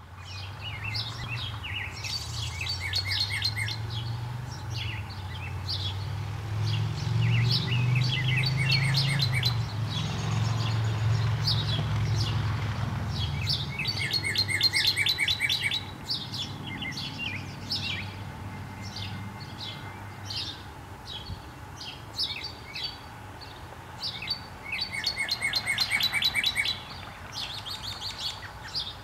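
Male northern cardinal singing: about four phrases of rapid, repeated down-slurred whistled notes, several seconds apart. A low rumble runs under the first half.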